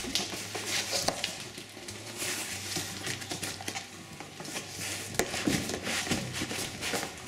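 Cardboard boxes being handled: a foam-padded inner box is slid out of its cardboard shipping carton, with cardboard and foam scraping and rubbing, and a sharp knock about five seconds in.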